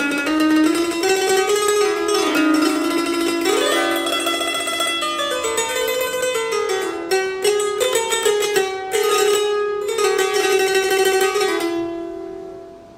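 Electrified simsimiyya lyre plucked in a quick, busy run of notes on an Arabic scale. Nearly twelve seconds in the playing stops and the last notes ring on and fade.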